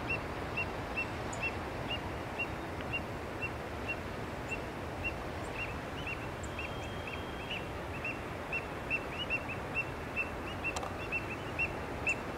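A bird repeating a short, high chirp about twice a second, the calls coming a little faster near the end, over a steady wash of surf.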